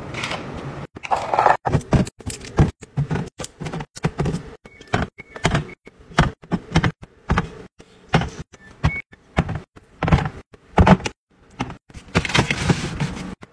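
Hands restocking a refrigerator: plastic snack cups pushed into a clear plastic bin, then aluminium drink cans set down on the shelf one after another, making a quick run of sharp knocks and clinks. A longer scraping sound comes near the end.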